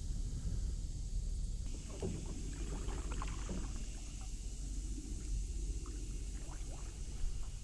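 Outdoor ambience on a small boat: a steady low wind rumble on the microphone, with light water movement and a few small ticks and splashes, and a steady high hiss.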